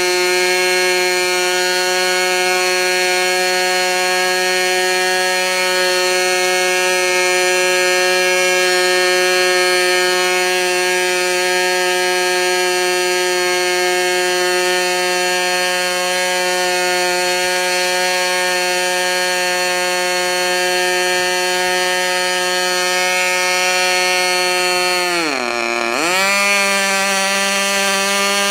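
Freshly overhauled, modified K&B .61 two-stroke glow-fuel model airplane engine running steadily at high speed, driving its propeller with a buzzing drone. Near the end its pitch drops sharply for about a second and then recovers, settling a little higher than before.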